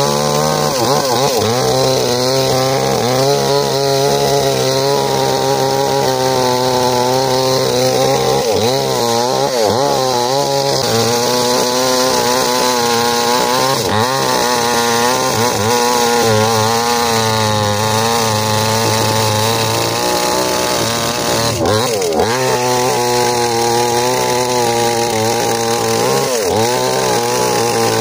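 Small two-stroke chainsaw running at high revs while cutting into a hard ironwood trunk. It runs continuously, its pitch sagging and recovering again and again as the chain bites and the engine loads up.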